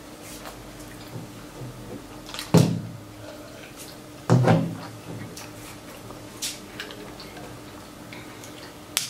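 Eating sounds at a table while picking at crab legs, with two loud knocks about two and a half and four and a half seconds in, and a few lighter clicks after.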